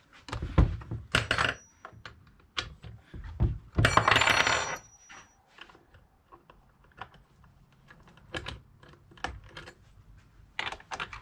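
Hand tools and chainsaw parts handled on a workbench: scattered clicks and knocks, with a louder metallic clatter about four seconds in that rings briefly.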